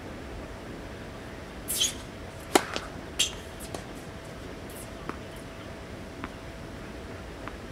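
A tennis racket striking a ball once, a sharp crack about two and a half seconds in, with short high scrapes just before and just after it and a few faint ticks later.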